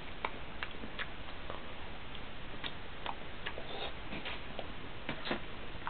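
A person chewing a mouthful of pastry: soft, irregular mouth clicks and smacks, two or three a second, over a steady hiss.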